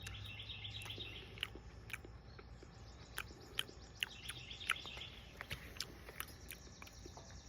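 Birds chirping in short repeated phrases, with scattered faint clicks.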